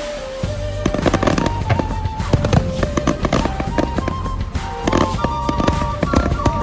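Fireworks crackling and popping in rapid, dense volleys from about a second in, over loud music with a melody.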